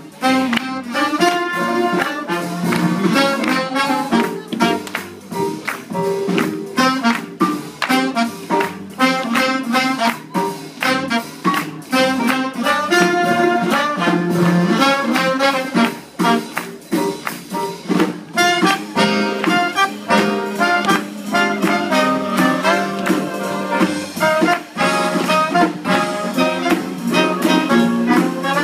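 Live swing big band playing, a horn section of saxophones and trumpets over a steady beat.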